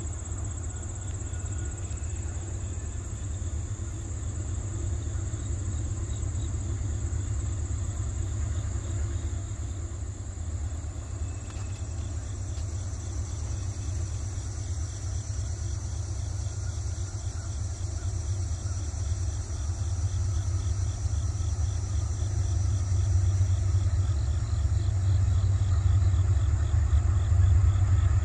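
Low, steady rumble of an approaching Norfolk Southern freight train's diesel locomotives, growing gradually louder as it nears, most of all in the last several seconds.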